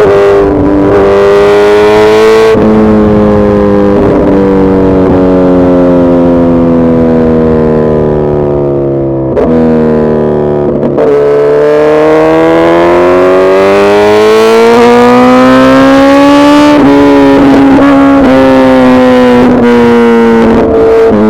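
Suzuki Hayabusa Gen3's 1340 cc inline-four engine running hard, its pitch sinking slowly for the first half, then climbing steadily for about six seconds before dropping abruptly and holding.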